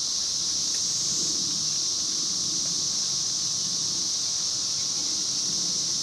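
Chorus of Brood X 17-year periodical cicadas, many calling at once: a continuous, steady, high-pitched buzzing drone.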